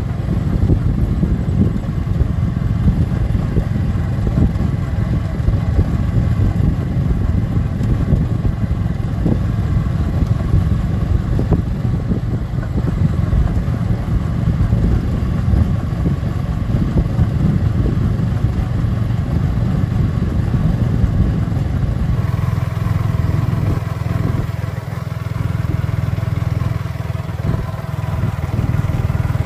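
Motorcycle running while being ridden, a steady rumble of engine and road noise. The sound changes abruptly about three quarters of the way through.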